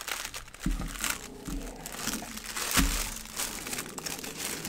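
Clear plastic packaging crinkling and crackling as it is handled and unwrapped by hand, irregular and continuous, with one louder crunch just under three seconds in.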